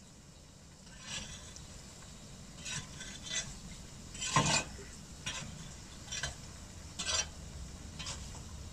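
A series of short scraping strokes at uneven intervals, roughly one a second, with the loudest, fullest one about four and a half seconds in.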